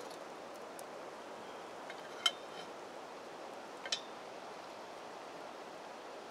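Faint, steady background hiss, with two short sharp clicks about two and four seconds in.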